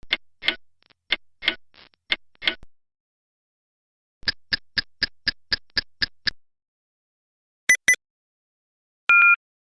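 Clock sound effects in sequence: a clock ticking at about three ticks a second, then after a pause a sharper, faster ticking at about four a second. Near the end come two quick clicks and a short electronic beep, as from a digital clock.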